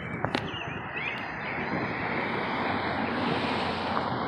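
Steady wind blowing across the microphone outdoors, with a few faint short bird chirps in the first second or so.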